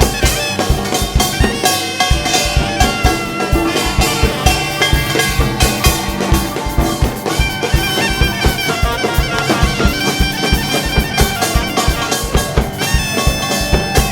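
A live gugak (Korean traditional music) ensemble playing an upbeat piece: a wind-instrument melody over a steady, regular drum beat.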